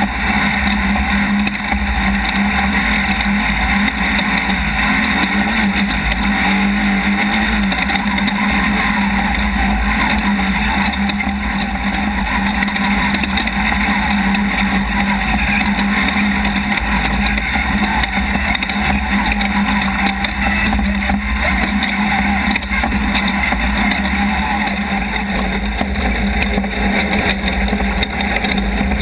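Off-road race car running at speed: a loud, steady engine drone with a constant rush of wind and terrain noise.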